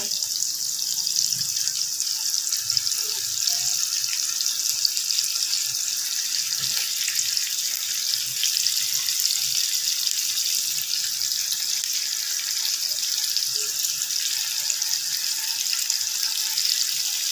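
Sliced onions sizzling steadily in hot oil in a frying pan.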